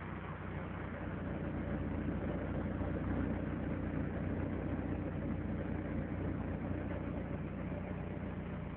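Opel Tigra's four-cylinder engine idling steadily.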